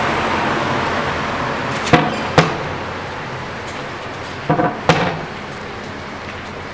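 Steady road traffic noise. Two pairs of sharp knocks come through it, the first about two seconds in and the second about four and a half seconds in.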